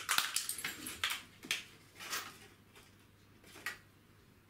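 Metal pipe clamps being unpacked by hand: rustling of packaging and light clicks and clinks, dense for about the first second and a half, then a few separate clicks.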